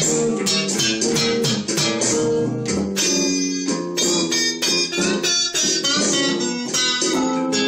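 Guitars playing a blues jam: quick picked single notes over chords, with frequent strummed or plucked attacks.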